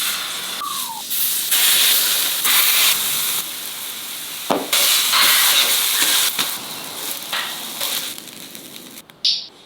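Smash burger patties sizzling hard on the hot flat plate of a two-burner tabletop gas barbecue. The sizzle rises and falls in abrupt steps, with a few sharp clicks.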